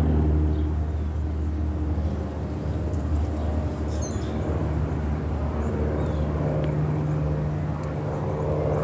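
An engine's steady low drone, with a few short high chirps about four seconds in.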